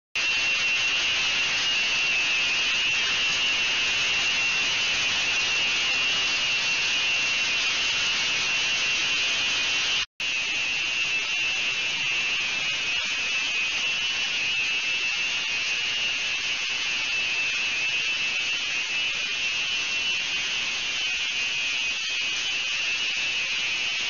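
Ultrasonic cleaning tank running with degassed fine-bubble liquid circulation: a steady, high-pitched hiss from cavitation in the water. It cuts out for an instant about ten seconds in, then carries on unchanged.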